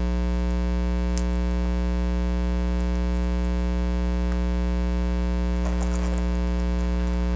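Steady electrical mains hum, a low buzz with many overtones, with a faint click about a second in and light handling rustle near the end.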